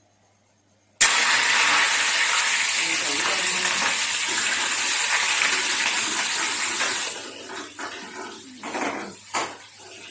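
Cumin seeds and garlic dropped into a hot pan for a tadka, sizzling loudly all at once about a second in; the hiss eases after about six seconds, followed by a few knocks of a metal spoon in the pan.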